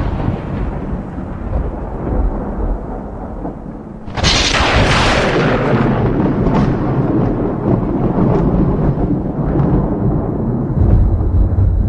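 Thunder: a deep rumble fading away, then a sudden sharp crack about four seconds in that rolls on into a long low rumble, swelling again near the end.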